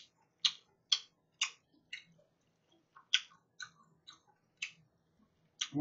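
A run of short, sharp clicks, about two a second, with a pause of about a second near the middle.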